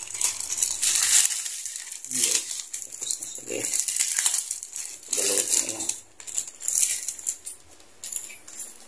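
Clear plastic snack packet crinkling and rustling in the hands as crushed chicharron (pork cracklings) is shaken out of it, on and off with short pauses.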